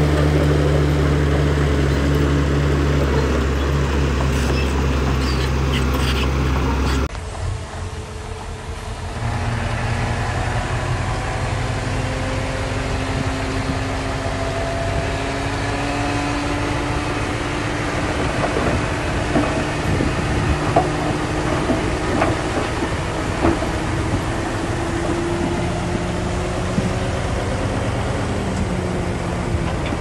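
Diesel engine of heavy earthmoving machinery running. The sound changes abruptly about seven seconds in to a different engine note, with a tone that slowly rises in pitch and a few light clanks.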